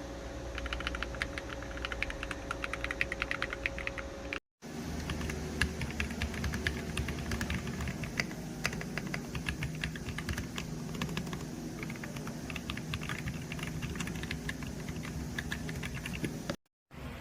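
Typing on a Royal Kludge RK R65 gasket-mounted mechanical keyboard with PBT keycaps: fast, continuous key clicks, in stretches cut together with two brief silent breaks.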